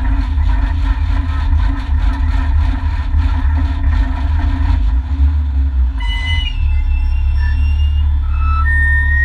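Renault Mégane N4 rally car's engine idling with a deep rumble in the cabin as the car creeps slowly, with a rattle over it for the first five seconds. From about six seconds in, a few thin high tones sound over the rumble.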